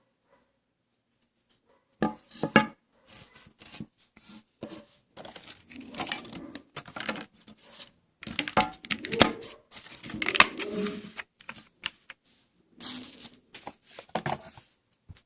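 Handling of a Corsair Dominator GT memory kit and its packaging: irregular clicks, taps and rustles, starting about two seconds in.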